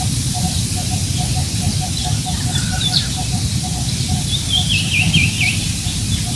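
Wind rumbling on the microphone over a rice paddy, with birds calling: a short low note repeating about three times a second throughout, and quick runs of short falling high chirps around the middle and again later on.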